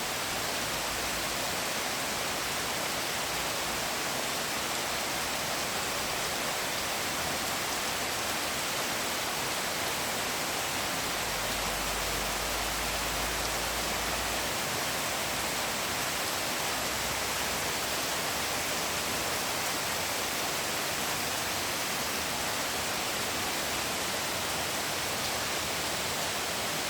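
Steady rain falling, a dense even hiss that does not change.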